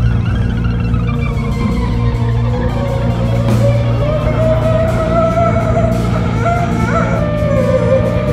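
Jazz fusion band playing live: a held, sliding lead melody over a steady bass line and drums with cymbals. A quick upward slide in the melody comes about seven seconds in.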